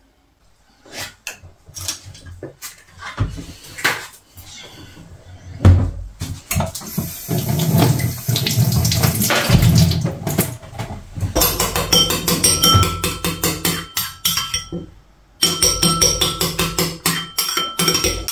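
A metal spoon beating egg yolks in a ceramic bowl: rapid, steady clinking against the bowl through the last part, with a brief pause about three seconds before the end. Before it, scattered knocks and a few seconds of running tap water.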